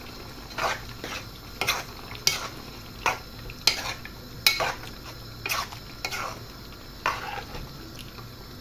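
A utensil stirring prawns and vegetables in a cooking pot, knocking against the pot about once or twice a second.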